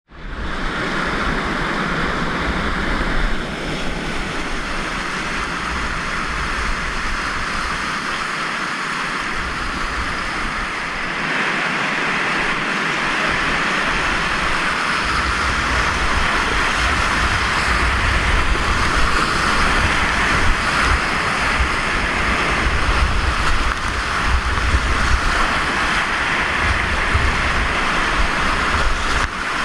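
Whitewater rapids rushing loudly and steadily around a kayak, heard up close from the paddler's position, with a low rumbling buffet on the microphone that drops away for a few seconds midway and then comes back stronger.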